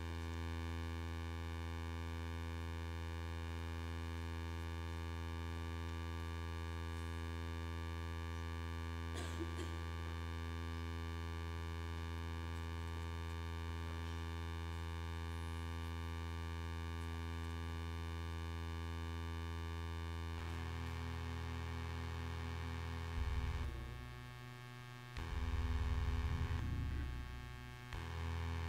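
Low synthesizer drone held steadily, with many overtones. The held notes shift about twenty seconds in, then swell and break off in short surges over the last few seconds.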